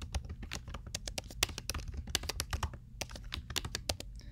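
Typing on a computer keyboard: a quick, irregular run of keystrokes, with a short pause about three seconds in.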